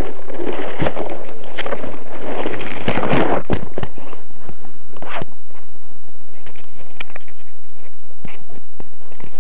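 Leaves and branches rustling and crackling, with sharp snaps, as someone pushes on foot through dense brush. After about four seconds it dies down to a few scattered light clicks and knocks.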